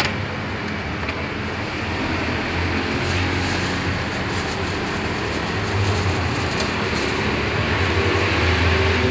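Steady rumble of road traffic, swelling now and then as vehicles pass.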